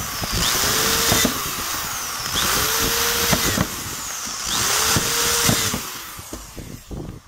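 Drill press boring pre-drill holes through a Kydex sheet into the plywood jig beneath. There are three cutting passes about two seconds apart, each with the pitch rising and falling as the bit goes through, and the drilling tapers off near the end.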